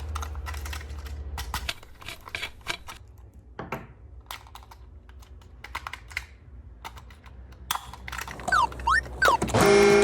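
Irregular sharp plastic clicks and taps of toy pieces being handled. Near the end come three quick rising and falling whistle-like glides, then a louder pitched toy sound starts.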